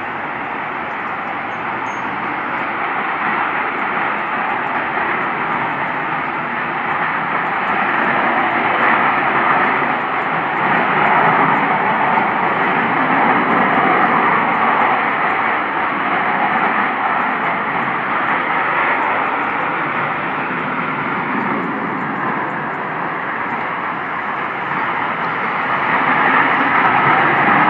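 Loud, continuous rushing noise of the viral 'strange sky sounds' kind, with no clear pitch, swelling and easing slowly: a sound its recorders liken to jets overhead or a car crash that never stops, heard with no aircraft in sight and of unexplained origin.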